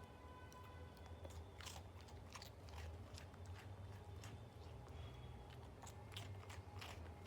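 A dog chewing a treat, with irregular crunches.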